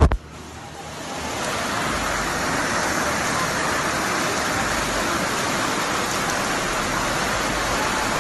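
Steady noise of rushing floodwater and rain in a flooded street, building over the first couple of seconds and then holding even. A brief loud thump comes right at the start.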